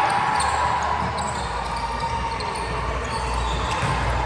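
A basketball being dribbled on a gym floor during a game, with short high ticks scattered over a steady background of gym noise.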